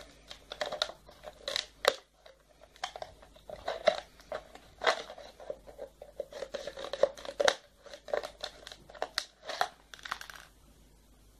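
Scissors cutting a plastic tennis ball can into narrow strips: irregular crisp snips with crinkling of the plastic, stopping about ten seconds in.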